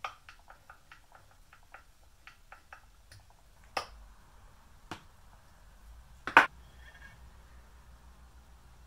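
Small screw being driven by hand with a screwdriver through the socket of a steel slick into its wooden handle: light, irregular clicks at about three or four a second, then three knocks on the workbench, the last about six seconds in the loudest.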